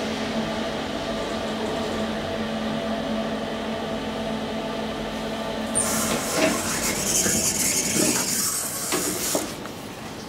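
2012 SMW traction elevator car running with a steady hum of several held tones. About six seconds in, a loud hiss with clicks and knocks lasts about three seconds as the car arrives and its doors open.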